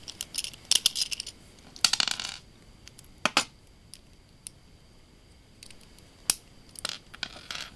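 Galaxy Pegasus W105R2F Beyblade being twisted apart by hand: its plastic and metal parts clicking and scraping against each other in irregular bursts. There is a dense run of clicks at the start, a longer scraping rattle about two seconds in, and scattered single clicks after that.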